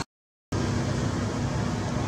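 A half-second of dead silence at an edit, then a steady low background rumble with a faint hiss above it.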